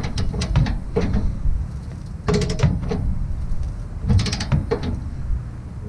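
Torque wrench ratchet clicking as it is swung back and forth to tighten a trailer hitch mounting bolt toward 86 ft-lb. A few single clicks come in the first second, then two bursts of rapid clicking about two seconds apart.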